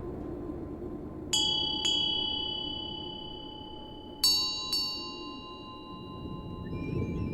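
Meditation bells struck twice in quick succession, then twice again a few seconds later at a slightly different pitch. Each strike rings on with several clear, slowly fading tones over a soft low drone.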